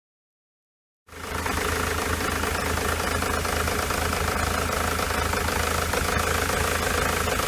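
Ford Transit's 2.4 TDDI Duratorq diesel engine idling with a misfire, cutting in about a second in and running steadily with a rapid, even knock.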